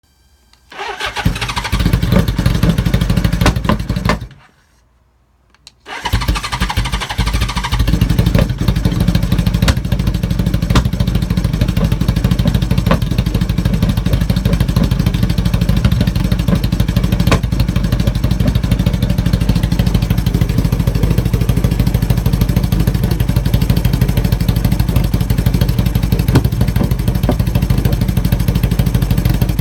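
1980 Honda CB750K's air-cooled inline four-cylinder engine starts about a second in and runs, cuts out about four seconds in, then comes back about two seconds later and idles roughly and steadily.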